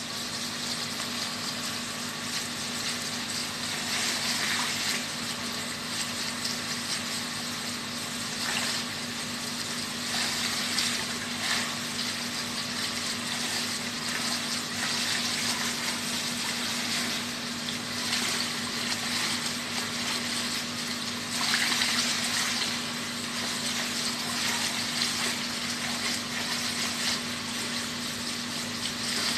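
Water running and splashing steadily, swelling louder now and then, over a constant low hum like a pump motor's.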